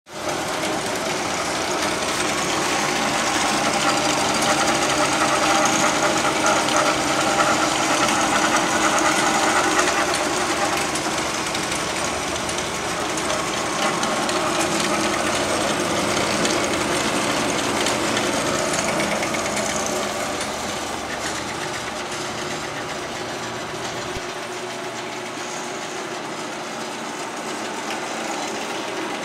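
Kalamazoo 9" x 13" horizontal bandsaw running, its blade cutting through a large round metal tube: a steady mechanical drone with the dense hiss of the cut, easing slightly in level about two-thirds of the way through.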